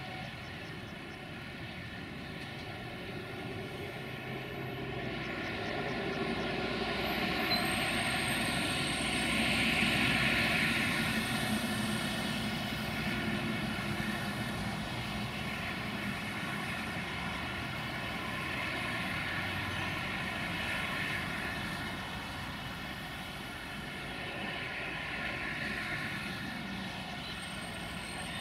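LDH1250 diesel-hydraulic locomotive approaching slowly with a freight train: a steady engine drone with a high multi-toned whine, swelling to its loudest about ten seconds in.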